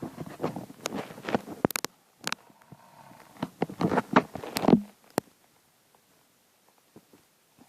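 An elderly man snoring in his sleep: two crackly snores of about two seconds each, the second following soon after the first.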